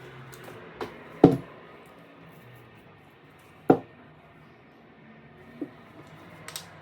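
A few sharp knocks or clunks over a low steady background: two loud ones about a second in and near the middle, and lighter taps around them.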